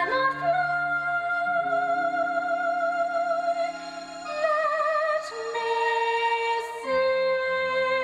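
Female soprano voice singing long, held notes with a wide vibrato over sustained instrumental accompaniment, in a musical theatre style.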